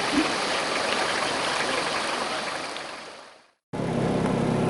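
A steady rushing noise fades out about three seconds in, followed by a brief silence. Then a 4x4 vehicle's engine starts up on the sound, running steadily with a low, even hum.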